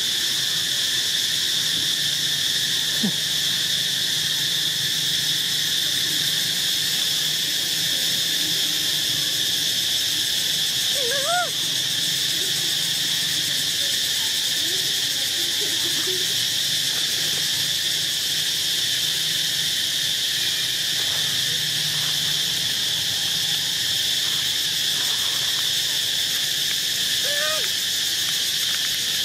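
Steady, high-pitched drone of insects in chorus, with a short rising-and-falling call about eleven seconds in and another near the end.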